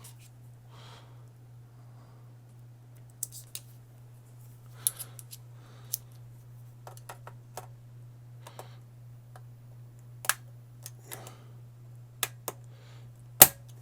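A screwdriver and the spring-steel X-clamp clicking and scraping against an Xbox One S heatsink bracket, with a few sharp snaps as the clamp arms pop into place; the loudest snap comes near the end.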